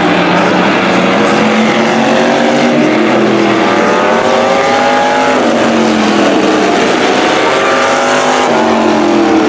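Engines of several demo cars racing around an oval track, loud and overlapping. Their pitch climbs and drops repeatedly as the cars accelerate and back off, with sharp drops about halfway through and again near the end.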